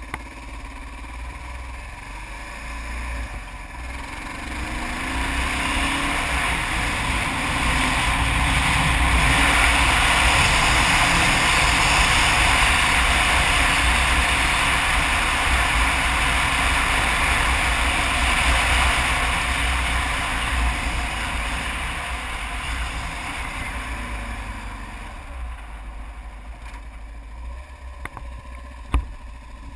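Kawasaki KLR 650's single-cylinder engine running under way, heard from the bike, with wind rush on the microphone building to loud through the middle as speed rises and easing off near the end as the bike slows. A sharp knock comes near the end.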